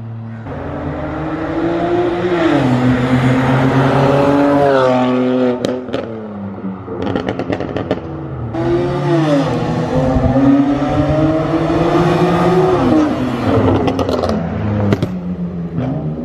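Car engine revving up and dropping back several times, with crackles and pops on the overrun as the revs fall.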